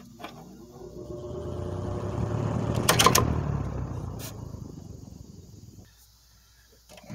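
1980s Patton box fan starting up: the motor and blades spin up with a rising whir and hum, with a few sharp clicks around the middle. The sound then dies away to near quiet by about six seconds in. The motor bearings are freshly oiled with sewing machine oil.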